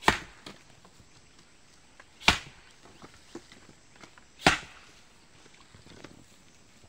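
Axe splitting firewood: three sharp blows about two seconds apart. Lighter knocks of split sticks being gathered come in between.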